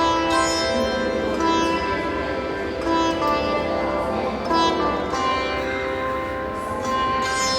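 Instrumental background music led by a plucked string instrument in an Indian classical style: single notes struck about once a second and left to ring over a steady drone.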